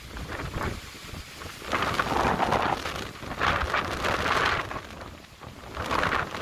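Strong typhoon wind gusting through leafy trees, the rustle swelling and easing three times, with the wind buffeting the microphone underneath.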